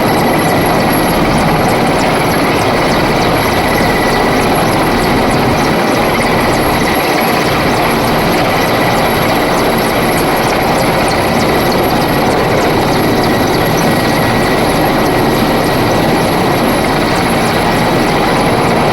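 Helicopter running steadily overhead: a loud, even rush of rotor and engine noise with a thin steady whine through it.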